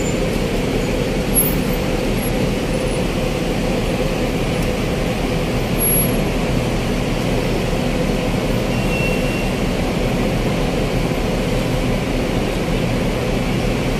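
Steady road traffic noise of buses, cars and motorcycles running and idling close by, an even continuous rumble with no single event standing out.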